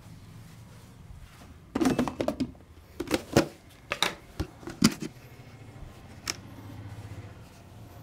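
A clear plastic jar being handled: a short rattling clatter about two seconds in, then a run of sharp knocks and clicks over the next three seconds, and a single click a little later.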